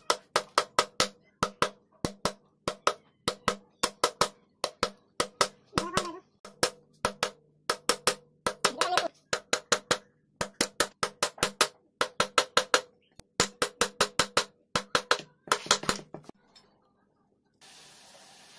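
Hammer blows driving a ball bearing into a motorcycle engine's aluminium crankcase: sharp metallic taps in runs of several, about three or four a second. They stop shortly before the end.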